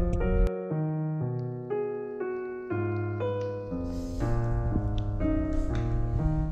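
Background piano music: a melody of short, evenly paced notes over a bass line.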